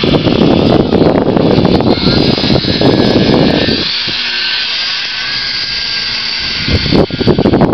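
Small 3D RC plane's motor and propeller whining as it flies, under heavy wind buffeting on the microphone. The buffeting drops away for a few seconds midway, leaving the whine clear, and comes back near the end.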